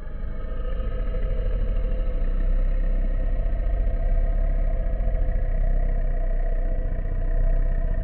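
Loud rumbling sound effect: a deep, rapidly fluttering rumble with a steady mid-pitched drone over it, building over the first couple of seconds and then holding.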